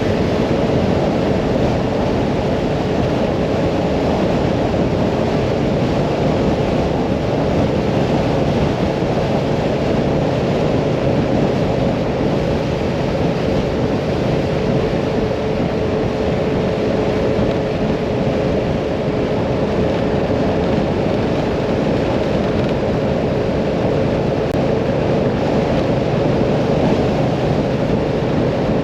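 Mirage 650 motorcycle cruising at a steady road speed: engine running with a faint steady drone under heavy wind rushing over the microphone.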